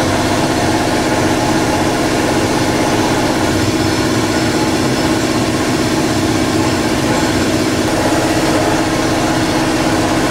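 Brake flush machine's pump running with a steady, unchanging hum as it pushes new brake fluid through the system.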